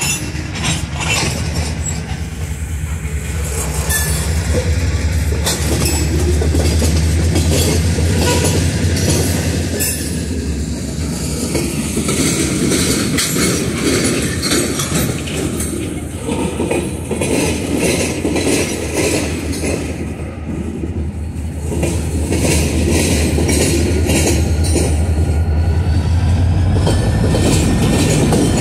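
Freight cars of a passing freight train rolling by, their wheels clicking over the rail joints over a steady heavy rumble. Near the end the low diesel hum grows louder as CSX diesel locomotives come past.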